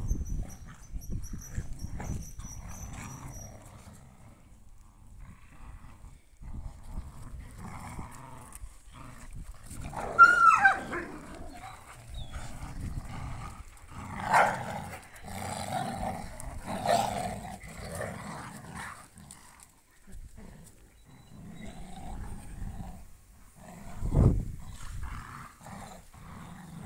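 Several dogs play-fighting and tugging on a rope toy, growling throughout. A short high yelp comes about ten seconds in, and louder bursts of growling follow later.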